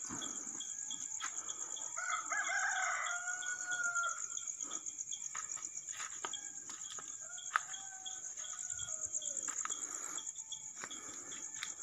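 A rooster crows about two seconds in, one long drawn-out call, and a second, fainter crow follows around the middle, over a steady pulsing trill of crickets.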